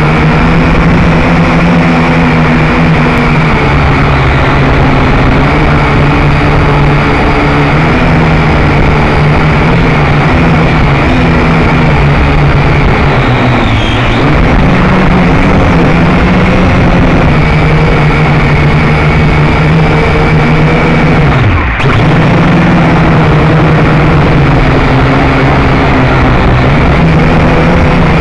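Drone's electric motors and propellers buzzing loudly right by the onboard camera's microphone, a steady hum whose pitch wavers with the throttle. The pitch sags briefly around the middle, then about three quarters of the way through it drops sharply for a split second and comes straight back up.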